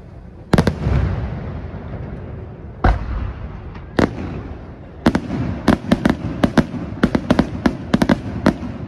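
Aerial firework shells from a Senatore Fireworks display bursting: a loud boom about half a second in that rumbles and echoes for a second or two, single bangs near 3 and 4 seconds, then from about 5 seconds a quick run of a dozen or so sharp bangs close together.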